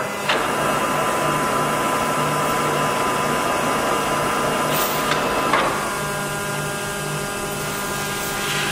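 A Timemaster gap bed engine lathe running under power with its spindle at about 194 RPM: a steady mechanical hum with an even pulsing in the low end and several steady gear tones. Brief clicks come about half a second in and again around five seconds in.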